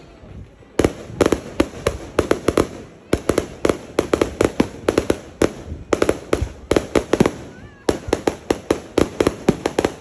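Aerial fireworks going off in rapid volleys of sharp, crackling cracks, with short lulls between the volleys.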